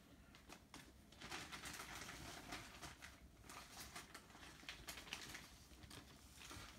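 Faint rustling and crinkling of packaging being handled, a dense run of small quick crackles that is busiest in the middle and thins out toward the end.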